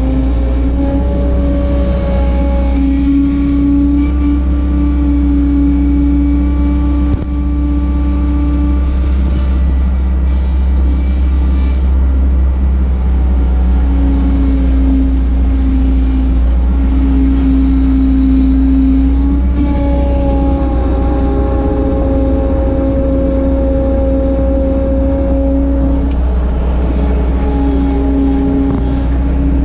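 1988 Bobcat 743 skid steer running while it works: a steady engine rumble with a whining tone that steps up and down in pitch every few seconds as the load and engine speed change.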